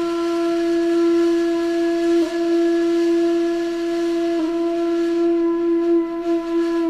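A single long wind-instrument note, flute-like and held at one steady pitch, with two brief breaks about two and four and a half seconds in.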